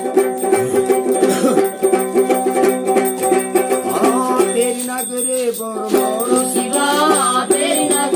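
Long-necked plucked folk lute strummed in a steady repeating rhythm, accompanying a Chambyali musada devotional song; a man's singing voice comes in briefly about halfway and again near the end.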